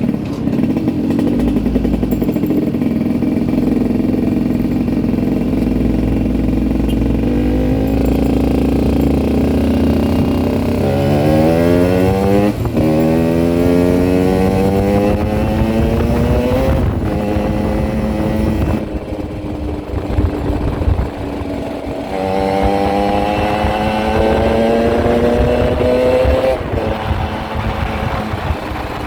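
Yamaha RX-King's two-stroke single-cylinder engine running at idle and revved twice, about ten and twenty-two seconds in, the pitch rising and then dropping back each time. The owner calls its sound 'ngorok', a snoring noise.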